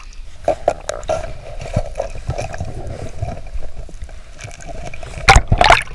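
Muffled underwater sound of a swimmer diving under, heard through a submerged camera: a steady hum with faint clicks and a low rumble, then a loud burst of noise a little over five seconds in.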